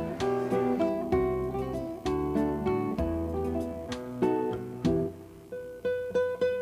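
Acoustic guitar music, plucked and strummed notes, thinning out to a few higher picked notes near the end.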